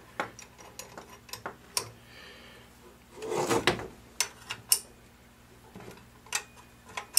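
Steel open-end wrenches clicking and scraping on a brass compression nut and fitting as the nut is tightened down on copper tubing, squeezing the ferrule onto the tube. Scattered light metal clicks, with a louder, longer stretch of rubbing noise about three and a half seconds in.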